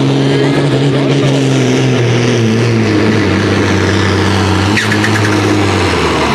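Diesel engine of a blue pulling tractor at full load, dragging the weight sled. Its steady note slowly sinks in pitch as the sled bogs the engine down.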